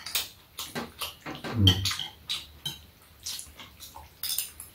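People eating at a table: chewing and lip-smacking, with spoons and chopsticks clicking against bowls and a metal tray in short irregular taps. A brief low vocal hum comes about a second and a half in.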